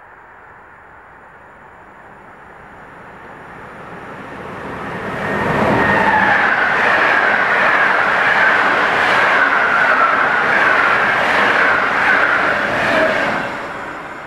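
PKP Intercity express train, hauled by an EU160 Griffin electric locomotive, approaching and passing at speed. Its wheels rumble and clatter in an even rhythm as the coaches go by, with a wavering high whine over the top. It swells in, stays loud for about eight seconds, then fades near the end.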